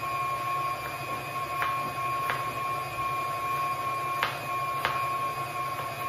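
Kitchen knife chopping shallots on a cutting board, about four separate knocks of the blade against the board, over a steady high-pitched background hum. The knife is not as sharp as it should be.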